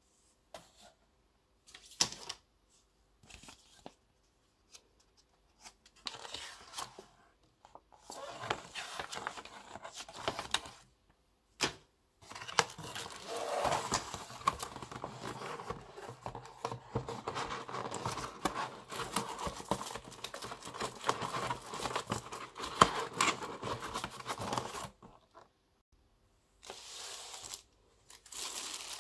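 Cardboard, paper and plastic packaging being handled during an unboxing: scattered taps and rustles at first, then a long spell of continuous rustling and crinkling through the middle. It stops briefly near the end, then starts again.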